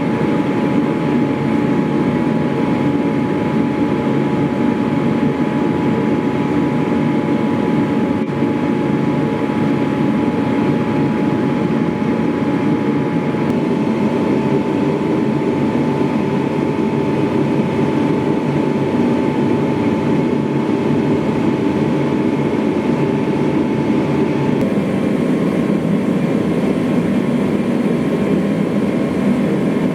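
A machine running steadily, with a faint whine that shifts in pitch about 13 seconds in and again about 24 seconds in.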